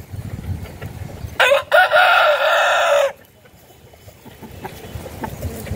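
A rooster crows once, loud, starting about a second and a half in and lasting under two seconds: a short first note, then a long held one. Faint chicken clucks and small scratchy sounds follow it.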